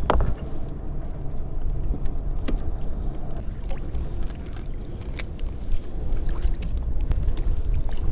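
Low rumble of wind on the microphone and water lapping against a kayak's hull, with a sharp knock near the start and a few light clicks.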